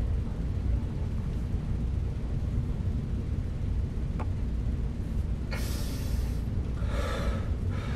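Steady low room rumble, with a faint click about four seconds in and two short breathy hisses near the end.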